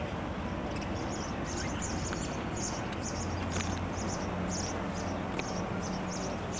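Repeated high chirping from a small animal, about two chirps a second, over a low steady hum.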